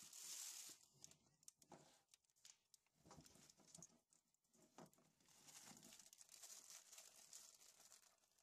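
Faint crinkling of a clear plastic zip bag being handled, at the start and again from about five and a half seconds in. In between come scattered light clicks and taps of plastic ink cartridges and tanks being handled.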